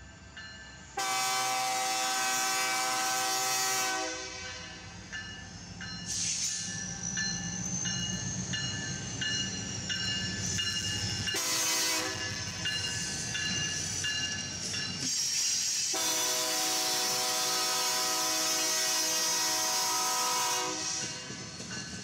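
Freight train passing close by, its EMD SD40-2R lead locomotive's air horn sounding a long blast, a short one, then another long one. Diesel engine rumble and wheel-on-rail noise run underneath.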